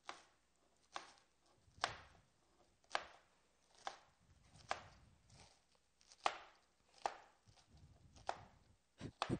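Chef's knife chopping cabbage on a cutting board: sharp knocks of the blade on the board, about one a second, with three quick chops near the end.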